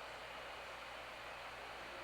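Faint steady hiss of background noise, with no distinct knocks or rustles standing out.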